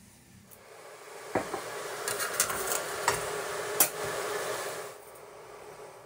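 Electric kettle heating water, a hiss that builds up and then drops away about five seconds in, with a few light clicks and knocks.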